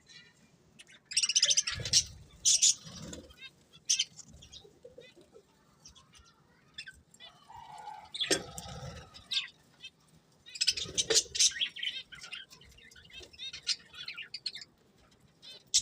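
Pet budgerigars chirping and chattering in bursts, with short pauses between.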